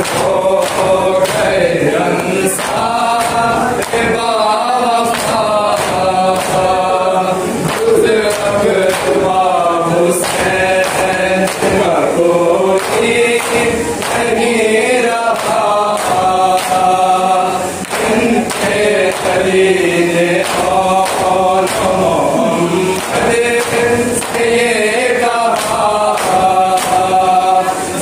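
A group of men chanting a Shia noha (mourning lament) together. Under the singing runs a steady beat of hands slapping on chests in matam, keeping time with the chant.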